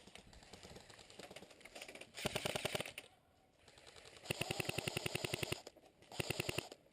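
Airsoft gun firing on full auto in three bursts of rapid, evenly spaced shots, about thirteen a second: a short burst about two seconds in, a longer one past four seconds, and a brief one near the end. Fainter rustling comes before the first burst.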